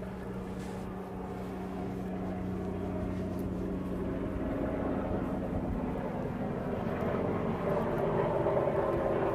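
Helicopter passing overhead, its engine and rotor hum growing steadily louder.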